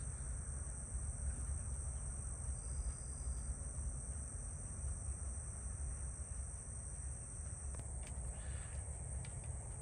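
Insects calling in a steady, high-pitched chorus over a low rumble.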